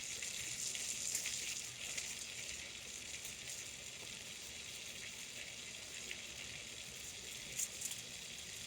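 Steady frying sizzle with faint scattered crackles.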